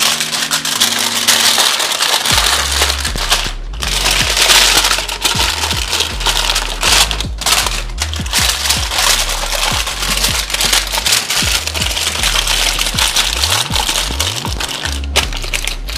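Aluminium foil crinkling and crumpling continuously as hands fold and crimp it over a metal sheet pan. Background music with a deep, sliding bass line comes in about two seconds in.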